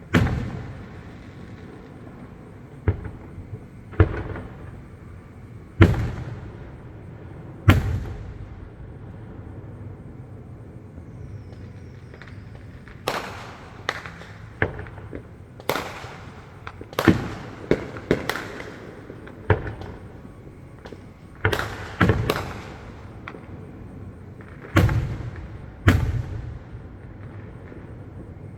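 Aerial fireworks bursting at a distance: a string of irregular sharp booms, each trailing off in a short echo, coming thicker in the second half.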